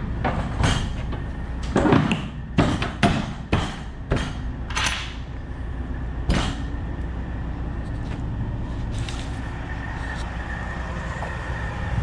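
A run of sharp metal clanks and knocks, about ten in the first six seconds, over the steady low rumble of a semi truck's Detroit Diesel 12.7 idling. A faint steady whine comes in about eight seconds in.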